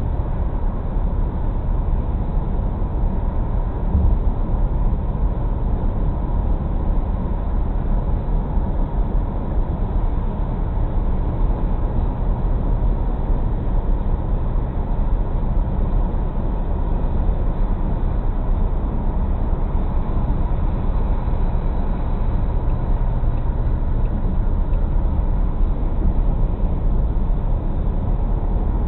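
Steady road and engine noise of a car cruising at highway speed, heard from inside the cabin as a low, even rumble, with a brief bump about four seconds in.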